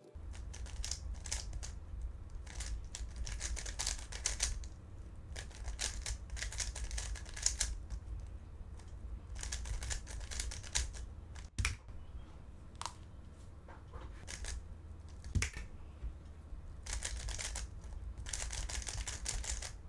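Plastic 3x3 Rubik's cube being turned fast in a speedsolve: runs of rapid clicking turns broken by short pauses.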